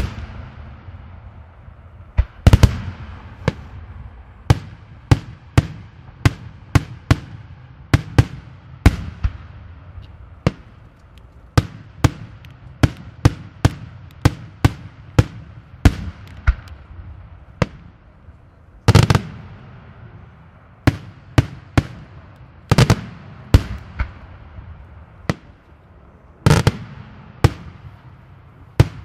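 Daytime aerial firework shells bursting overhead in a steady run of sharp bangs, roughly one or two a second. A few louder reports stand out, and each bang trails off in a brief echo.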